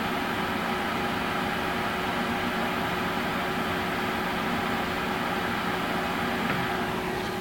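Watercooled GTX 680 graphics card buzzing steadily under full load: several steady humming tones over a hiss. The owner takes the buzz for coil whine.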